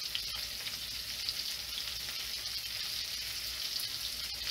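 Two ribeye steaks searing in melted salted butter in a hot cast iron skillet: a steady sizzle with fine crackles.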